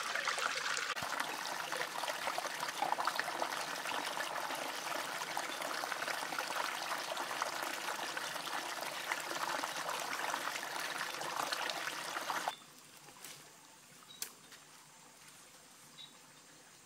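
Steady rush of water trickling over rocks in a stream, cutting off abruptly about twelve seconds in. After that only faint background with a few light clicks.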